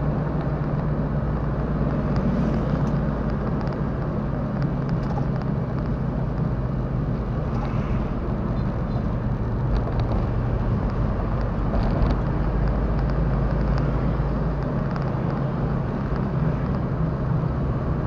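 Car engine and tyre noise heard inside the cabin while driving along a highway: a steady low hum, with a few light ticks and rattles.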